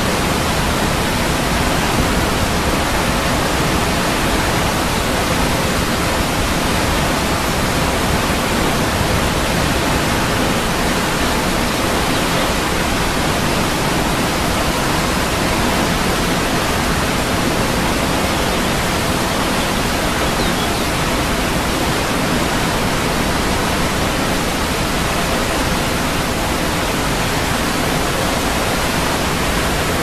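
Steady rush of a waterfall, falling water making an even, unbroken noise with no change in level.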